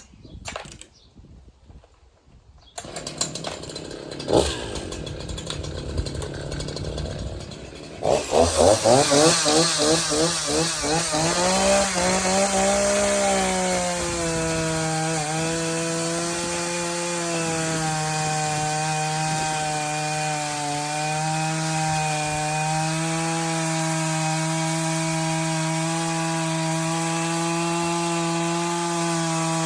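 Echo CS-501P 50cc two-stroke chainsaw, new and stock, idling from about three seconds in. About eight seconds in it goes to full throttle and cuts into wood, the pitch wavering and then holding steady under load.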